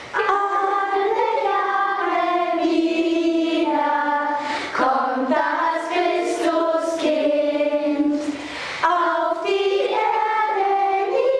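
Choir of high voices singing slow, held notes.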